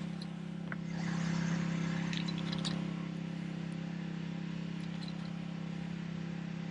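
Steady low hum of a small motor, with a soft rushing sound from about one to three seconds in.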